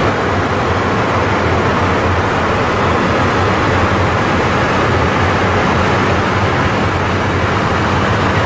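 Steady cockpit noise of a Cessna Citation 501 jet in flight: an even rush of airflow over the cabin mixed with its twin turbofan engines, unchanging throughout.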